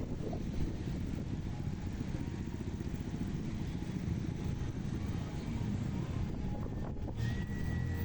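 City street traffic: a steady low rumble of vehicle engines. A thin high tone comes in near the end.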